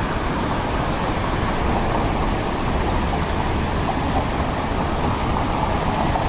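Mountain stream water rushing in a steady, even noise.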